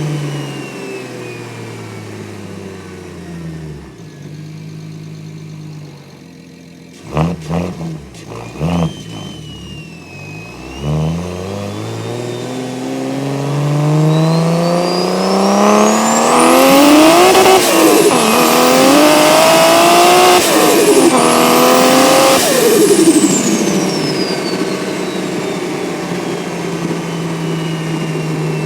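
Single-turbo BMW N54 straight-six with a straight-piped exhaust. It slows at first, gives a few short blips of the throttle, then accelerates hard with a high turbo whistle climbing as it spools. The pitch dips briefly twice as gears change, then the driver lifts off and the whistle falls away, leaving the engine running steadily.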